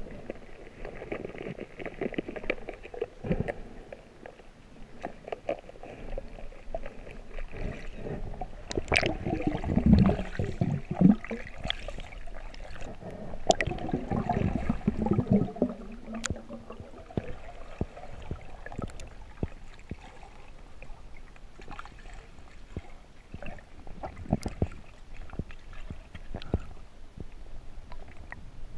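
Muffled underwater sound through a submerged camera: scattered small clicks and knocks with low gurgling rumbles, louder between about nine and sixteen seconds in.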